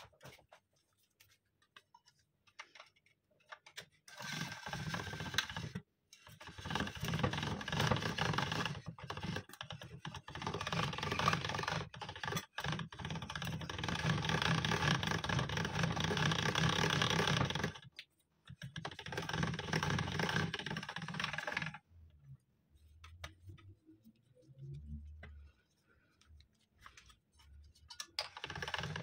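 Hand-cranked stainless steel pasta machine with its gears and smooth rollers clattering in a fast run of ticks as the crank is turned and dough is rolled through. The cranking goes on in two long stretches, stops for a few seconds with only soft thuds of the dough being handled, and starts again near the end.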